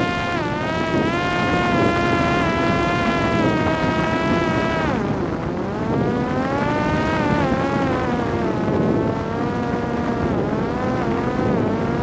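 A Parrot Disco fixed-wing drone's electric motor and rear pusher propeller whine in flight, with air rushing past. The pitch dips slightly about half a second in, falls steeply around five seconds in as the throttle eases back, climbs again, and dips once more near the end.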